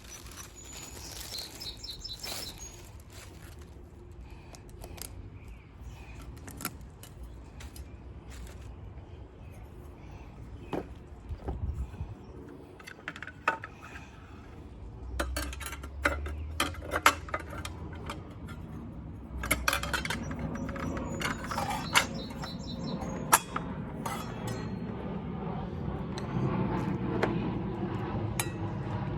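Scattered metallic clinks and knocks of a circular saw's blade, arbor bolt and washer being handled and taken off the saw, with the clinks coming in irregular clusters.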